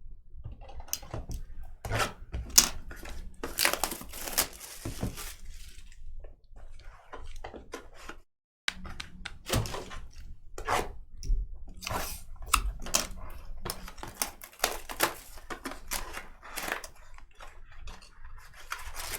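Irregular clicks, taps and rustles of hands working at a desk, the handling of cards and packaging mixed with keyboard-like tapping. There is a brief dead gap a little past the middle.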